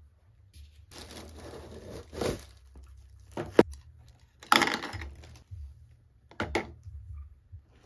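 Hands handling kitchenware and packaging on a table: a stretch of rustling, a sharp click, then a louder rustle and a couple of short knocks as utensils are set into a holder.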